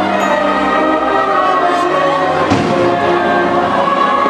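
Orchestral show music with a choir plays loudly over the park's speakers, and a single firework bang cuts through it about halfway.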